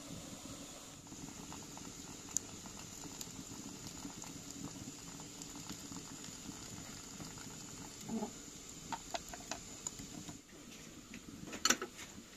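Wood fire crackling in a small metal stove: a steady hiss with scattered light crackles. Near the end, a sharp clink as the glass kettle is set down on the stove's metal top.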